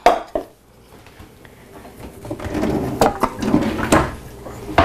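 Knocks and clatters as items are shifted about in a low kitchen cupboard below the counter, growing busier from about halfway through.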